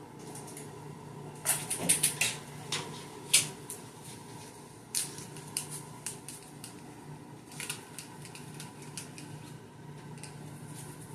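Clothes being handled: several short clusters of sharp clicks and rustles over a steady low hum in a small room.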